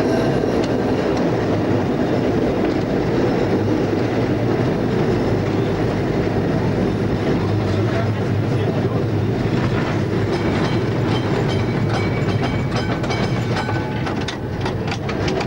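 Interurban tram railcar running along the track, heard from the driver's cab: a steady rumble and rattle of wheels on rails, with a run of sharp clicks over the rail joints near the end.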